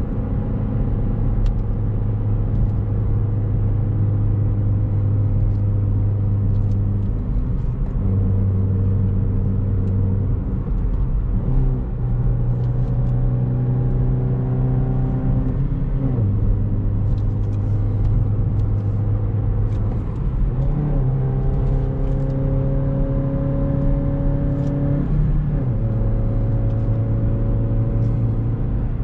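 Chevrolet Beat's small petrol engine, breathing through a K&N aftermarket air filter, pulling steadily under load. Its pitch holds or climbs slowly, then drops sharply several times as revs fall.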